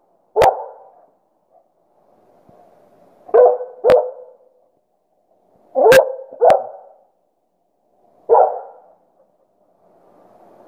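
A dog barking: six short barks, one, then two pairs, then one more, a couple of seconds apart.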